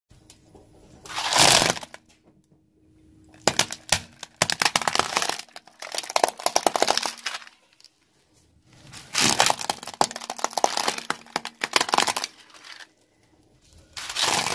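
A car tyre rolling over thin plastic bowls full of metallic bead necklaces: the plastic cracks and crunches while the beads click and rattle under the tread, in about four bursts with short pauses between.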